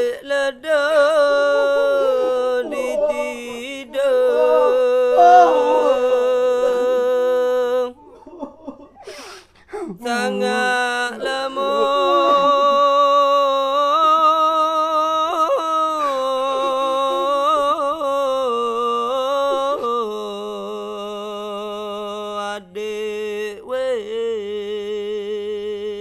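A single voice chanting in long, wavering held notes with ornamented turns, like a slow religious chant or lament. It breaks off for a couple of seconds about a third of the way in and settles onto a lower note near the end.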